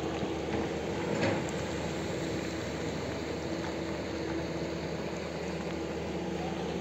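An excavator's engine running steadily at a constant pitch, with one short knock about a second in, as machinery works to clear a landslide off the road.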